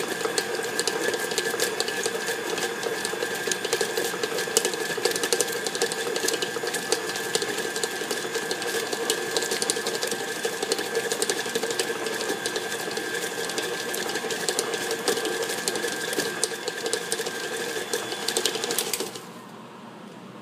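KitchenAid stand mixer running steadily on speed 4, its motor whining while the flat beater knocks and rattles chicken breasts around the stainless steel bowl, shredding them. The mixer cuts off suddenly near the end.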